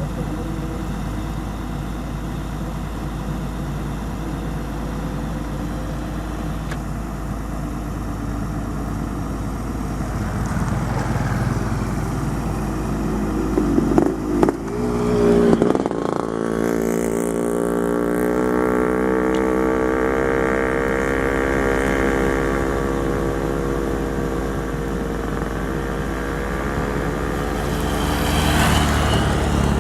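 Excavator's diesel engine running steadily, with a short burst of clattering about halfway through, after which the engine revs higher for about ten seconds and eases off again.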